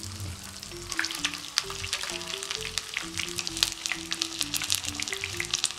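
Potato-starch-coated chicken wing frying in shallow hot oil in a frying pan: a steady sizzle with dense crackling that thickens about a second in. Light background music plays underneath.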